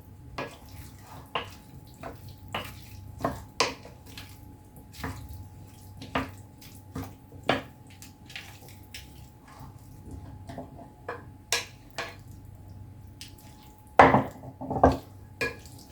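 A spoon clinking and scraping against a bowl while green olives are stirred with olive oil and spices, in irregular knocks with a louder flurry near the end.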